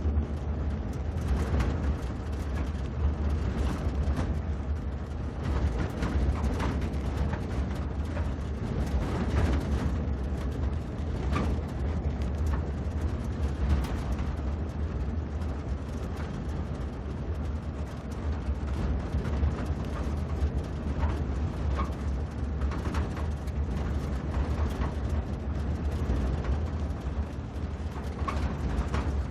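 A jeep being driven: a steady low engine and road rumble with frequent short rattles and knocks throughout.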